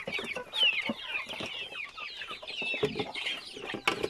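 A flock of young chickens peeping and clucking together: many short, high, falling chirps overlapping, with scattered sharp clicks and one louder click near the end.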